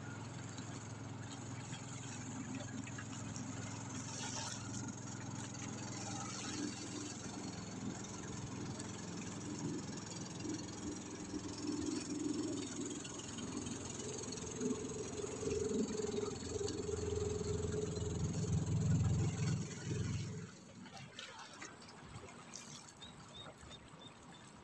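Engine of a small motorboat running steadily, with a low hum that grows somewhat louder, then stops abruptly about twenty seconds in.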